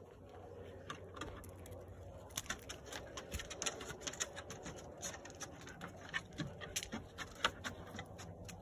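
Dogs' claws clicking on wooden porch steps and decking: an irregular run of quick light taps as the dogs move about.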